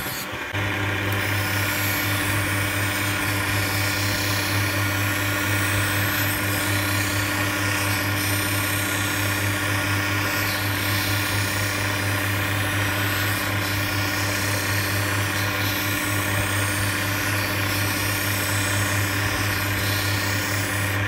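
Optician's bench hand edger running with a steady motor hum as a spectacle lens edge is ground by hand against its spinning wheel.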